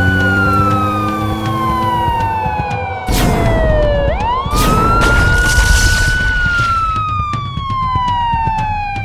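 Cartoon police siren wailing in slow cycles, each a quick rise followed by a long falling tone, twice. A sudden burst of noise comes about three seconds in and another around five to six seconds.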